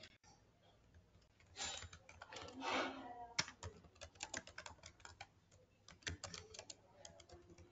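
Faint computer keyboard typing: a string of separate key clicks, most of them in the second half.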